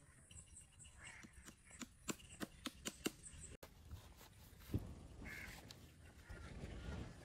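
Wooden mango crates being handled: a quick run of about eight sharp knocks in a second and a half, then a single thump about halfway through as the crates are loaded into a car boot. Faint outdoor ambience throughout.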